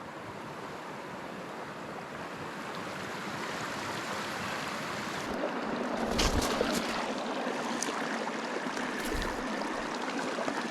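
Steady rush of flowing river water, with a few short knocks and low bumps about six and nine seconds in.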